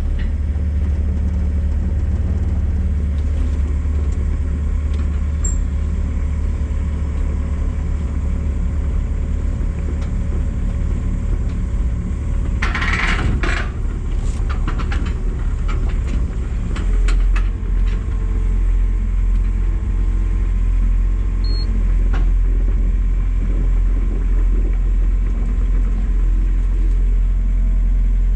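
Komatsu excavator's diesel engine running steadily as the machine is unloaded from its trailer, with a cluster of knocks about halfway through; about two-thirds of the way through its low note drops and grows stronger.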